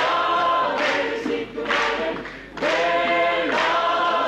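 Mixed choir of men and women singing a cappella, in short phrases of held chords.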